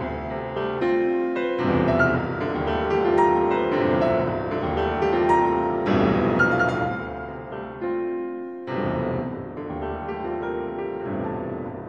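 Solo piano playing a contemporary classical piece: dense struck chords and quick figures left to ring into each other. Strong new attacks come about two, six and nine seconds in.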